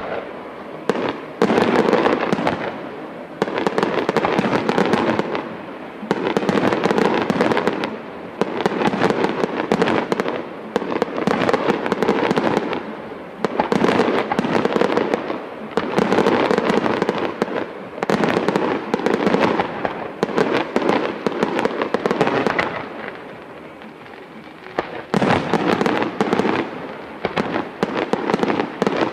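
Aerial fireworks shells bursting into crackling stars: dense, rapid crackling and popping that comes in waves every couple of seconds, with short lulls between them, about a dozen waves in all.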